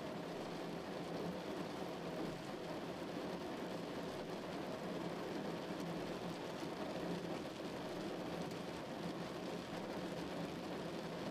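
Steady rain falling on a car's windshield and body, heard from inside the moving car, with the car's road noise underneath.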